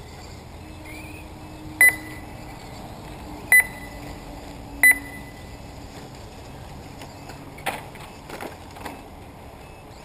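Three short, high electronic beeps about a second and a half apart, typical of an RC race lap-timing system registering cars crossing the line. A few knocks follow near the end.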